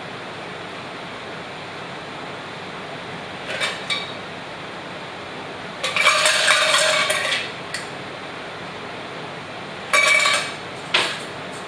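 Stainless steel cocktail tin clinking and clattering as a drink is poured from it into a stemmed glass. A couple of light clinks come first, then a louder metallic clatter of about a second and a half, then two sharp clinks near the end, all over steady room noise.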